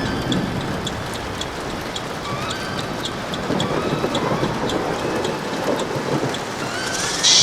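Rain sound effect: steady rainfall with drops ticking and a low rumble of thunder underneath.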